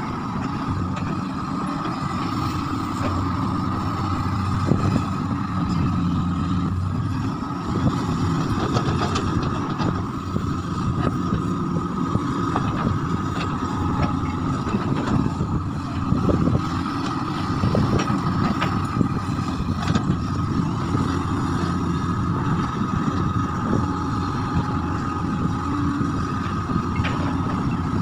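Doosan crawler excavator's diesel engine running under load as it digs, with a steady high whine over the engine. Scattered knocks and scrapes come from the bucket working through soil and rock.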